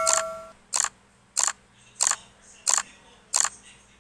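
Sound effects from an animated subscribe-button end screen. A notification-bell chime dies away in the first half second, then six short, crisp clicks come at an even pace, about three every two seconds.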